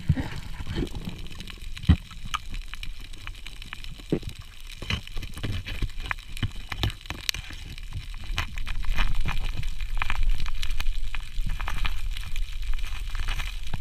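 Water sloshing and gurgling, with many short, scattered clicks and crackles over a low rumble, louder for a few seconds in the second half.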